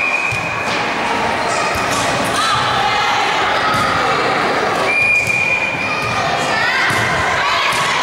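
Volleyball game in a sports hall: ball strikes and thuds under players' and spectators' shouts and cheers, with a whistle blown for about a second twice, at the start and about five seconds in.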